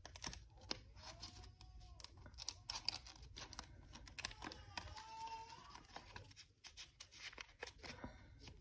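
Paper cash and paper envelopes being handled: quick, crisp rustles and small snaps of paper as bills are counted and stuffed into envelopes.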